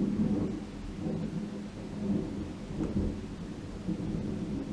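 Rolling thunder from a lightning strike, a low continuous rumble that swells and eases, with steady rain falling underneath.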